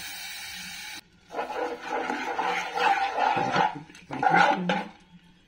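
A steady hiss that cuts off abruptly about a second in, followed by a spatula scraping and stirring milk into a flour-and-ghee mixture in a non-stick pan, in uneven strokes for about three and a half seconds.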